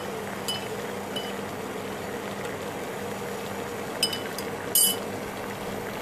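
Water with grated ginger boiling in a small steel saucepan, a steady bubbling hiss over a steady low hum. A few short ticks cut through; the loudest comes about five seconds in.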